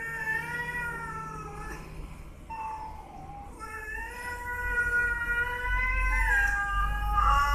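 Domestic cats squaring off, giving long, drawn-out, wavering yowls of aggression. One yowl fades about two seconds in, a short one comes around three seconds, and another long yowl builds from about three and a half seconds, loudest near the end as one cat lunges.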